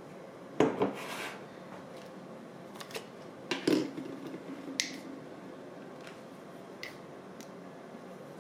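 Kitchen utensils and containers knocking and clinking as they are handled. There are a few sharp knocks about half a second in and again around three and a half seconds, then lighter clinks with a brief ring near five and seven seconds.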